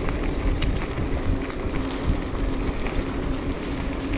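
Wind rushing over the microphone of a moving electric bike, with low rumble and a steady low hum from the bike running underneath.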